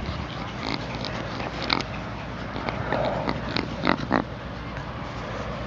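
A Yorkshire terrier sniffing and snuffling close to the microphone, a run of short huffs, loudest about four seconds in, over a steady low rumble.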